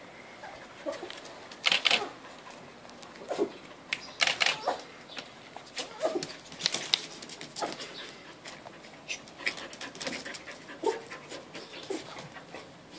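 Puppy playing with a cloth-and-ball toy: snuffling, breathy huffs and chewing noises, mixed with short pitched little sounds from the puppy. The loudest are a few sharp noisy bursts about two and four seconds in.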